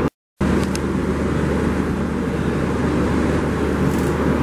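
Steady low rumbling background noise with a low hum under it, broken by a brief dead-silent dropout just after the start.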